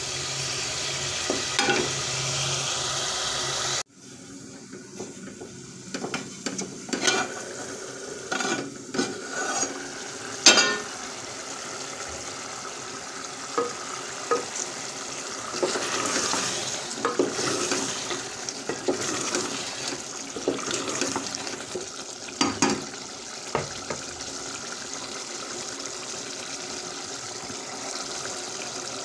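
Chicken curry sizzling in an aluminium pot as it is stirred, the spoon scraping and knocking against the pot's sides at irregular intervals. A louder steady hiss in the first four seconds stops abruptly.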